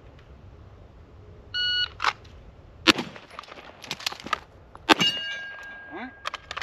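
Electronic shot-timer beep, then a string of handgun shots over the next few seconds, the loudest about three and five seconds in, with steel targets clanging and ringing when hit; one target's ring hangs on after the shot about five seconds in.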